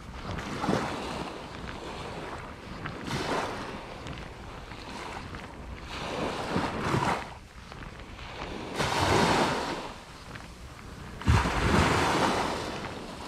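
Small sea waves breaking and washing up a sandy beach, a new surge every few seconds, the loudest one near the end. Wind buffets the microphone.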